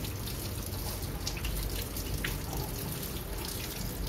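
Kitchen tap running through a spray head into a stainless steel sink as hands rinse a piece of beef under the stream. The water hisses steadily, with small splashes off the hands and meat.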